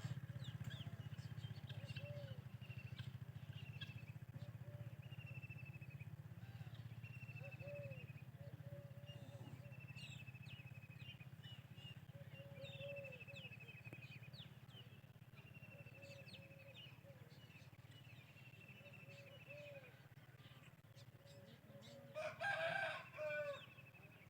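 Several birds calling: repeated short trilled chirps and lower short calls over a steady low hum. Near the end a rooster crows loudly.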